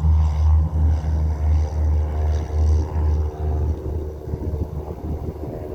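Cessna 172S Skyhawk's four-cylinder Lycoming piston engine and propeller running at takeoff power with a deep, unevenly throbbing drone, growing quieter over the last couple of seconds.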